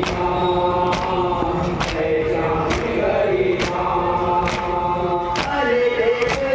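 Noha (Muharram lament) sung by a male reciter into a microphone, with a crowd of mourners chanting along. A sharp slap of hands striking chests (matam) falls about once a second, keeping the beat.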